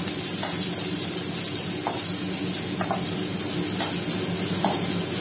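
Sliced onions sizzling in hot oil in a stainless steel kadai as they start to sauté, with a metal ladle ticking against the pan about once a second as they are stirred.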